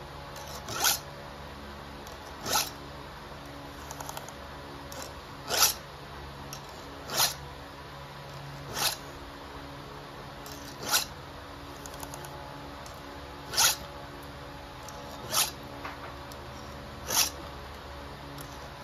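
Round file drawn by hand across a chainsaw chain's cutter teeth in short scraping strokes, about one every one and a half to two seconds, nine or so in all: the chain being sharpened.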